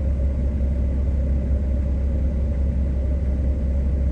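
Vehicle engine running, a steady low rumble with no change in pitch.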